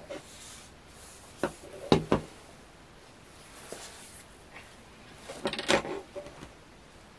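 Handling noise from reassembling a small diaphragm air pump: sharp clicks and knocks of its plastic parts against the table, three close together about two seconds in and another cluster a little after five seconds. The pump itself is not running.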